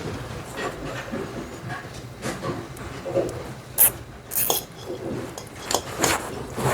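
Hands handling a charging cable and small parts, with scattered clicks and knocks and two short rasping zips about four seconds in: nylon zip ties being pulled tight for strain relief.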